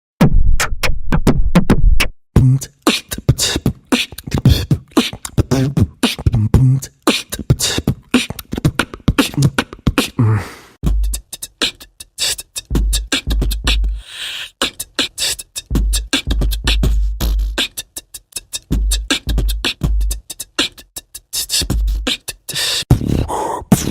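Beatboxing: a person makes a fast, steady rhythm of vocal kick-drum, snare and hi-hat sounds with the mouth, with deep bass hits through the second half.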